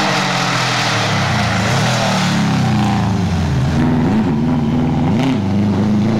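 Subaru Impreza rally car's turbocharged flat-four engine at high revs as the car approaches and passes close by. In the second half the pitch dips and rises a few times as the throttle is lifted and reapplied through the bend.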